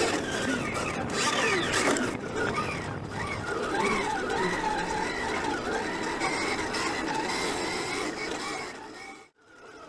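Motocross bike engine running, its pitch rising and falling as the throttle is worked. The sound cuts out abruptly about nine seconds in, then comes back.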